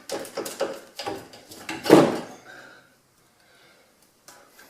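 Rear coil spring of a 2017 Jeep Cherokee, clamped in spring compressors, clunking and scraping metal on metal as it is worked down out of its seat, with a heavier clunk about two seconds in. A couple of light clicks follow near the end.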